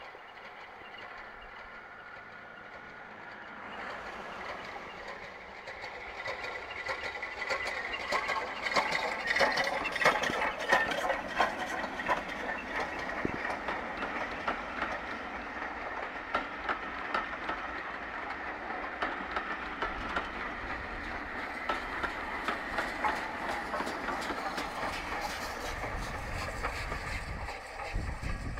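Steam-hauled passenger train passing close by, with LMS Stanier Mogul 42968 and GWR Manor class 7812 Erlestoke Manor as banking engine: locomotive exhaust beats and wheels clattering over rail joints. The sound builds about four seconds in, peaks soon after, and a deep rumble comes in near the end as the second locomotive draws near.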